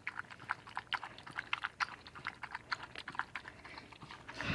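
Dog lapping water from a bowl: a fast, even run of small wet clicks, about five or six a second.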